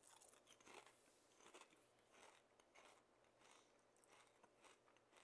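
Faint crunching and chewing of a mouthful of kettle-cooked potato chip with dip, a run of soft irregular crackles.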